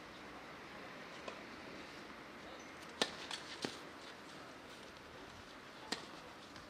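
Tennis racket striking the ball: a sharp hit on the serve about three seconds in, a couple of lighter knocks right after, and the return hit about six seconds in, over a steady low hiss.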